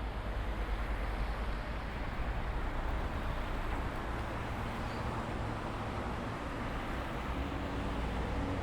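Steady city road traffic: a continuous wash of car tyre and engine noise with a low rumble. A steady engine hum joins in near the end.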